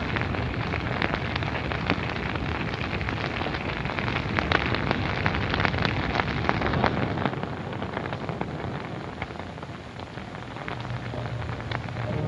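Burning brush piles crackling: a dense hiss full of sharp snaps and pops. It eases somewhat in the last few seconds.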